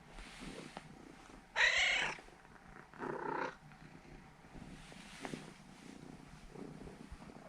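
Norwegian Forest Cat purring steadily. The purr is broken by a brief, loud pitched sound about one and a half seconds in, and a shorter, softer one around three seconds in.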